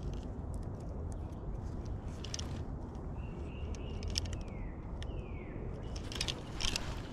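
Scattered clicks and rustling handling noises over a steady low rumble, with two short falling whistles near the middle.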